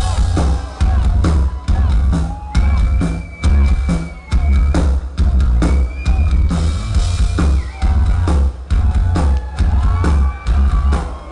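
Live rock band playing loud, with a pounding kick drum and bass under crashing drums. Two long held high notes ring out through the middle.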